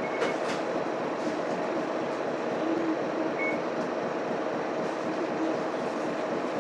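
Cabin sound inside a Mitsubishi Fuso Aerostar city bus: a steady mix of its 6M70 inline-six diesel engine and road noise, with a few faint clicks and rattles.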